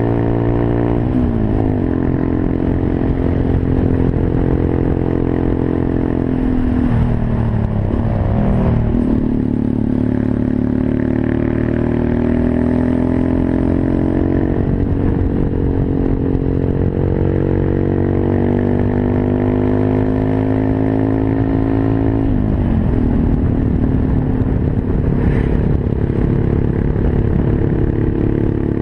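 Monkey bike's small single-cylinder engine running under way. Its pitch drops sharply and climbs again a few times, about a second in, around seven to nine seconds and about 22 seconds in, as the revs fall and rise.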